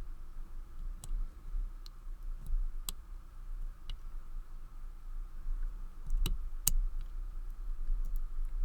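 Lever pick wire and tension tool clicking against the levers inside a Walsall 2000 five-lever padlock as the levers are nudged. About half a dozen light, scattered clicks, the two sharpest about six seconds in.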